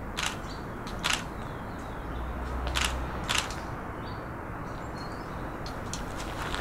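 Camera shutter clicking: four sharp clicks in two pairs, over steady background noise.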